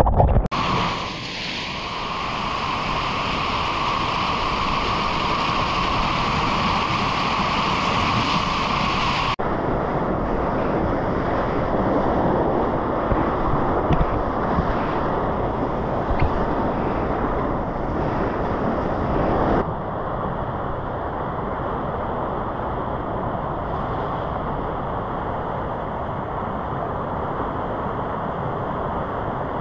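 Rushing, churning whitewater of the Eisbach river's standing wave, heard close up on a GoPro. The steady noise shifts abruptly about nine seconds in and drops a little about twenty seconds in.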